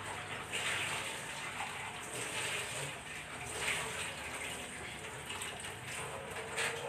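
Tap water running through a short hose into a sink, with a steady splash that swells several times as things are rinsed under it.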